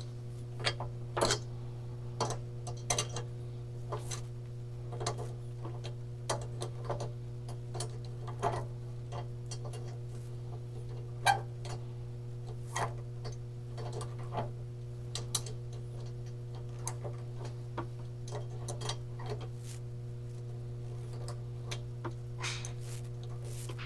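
Irregular metallic clicks and taps of a hand tool working on an aluminum cylinder head to free a broken exhaust stud, a few of them sharper, over a steady low hum.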